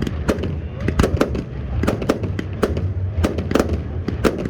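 Aerial fireworks going off in a rapid, irregular string of sharp bangs, about three a second, over a steady low rumble.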